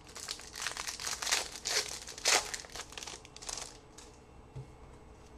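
A trading-card pack wrapper being torn open and crinkled by hand, in a run of sharp rustles for about four seconds that then die down.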